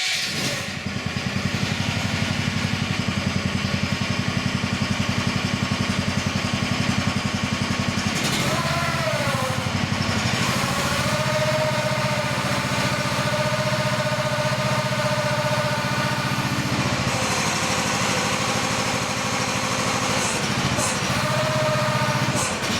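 Mini excavator's small engine running steadily, with a hydraulic whine that glides up and down about eight seconds in, holds steady for several seconds, and comes back near the end as the arm and new bucket are cycled through their motions.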